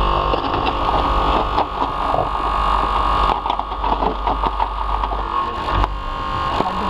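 Hydraulic rescue tool's power unit running with a steady hum, while a run of clicks and cracks sounds as the spreader works on the overturned car's body.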